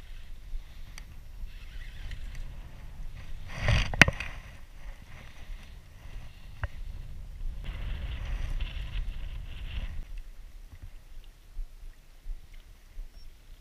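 Wind rumbling on the microphone, with handling noise from a rod and reel. A sharp knock comes about four seconds in, and a rougher rustle runs from about eight to ten seconds.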